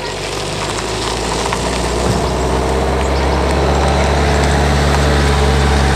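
A van's engine running as it drives slowly past, a steady low hum that grows louder over the first few seconds as it comes closer.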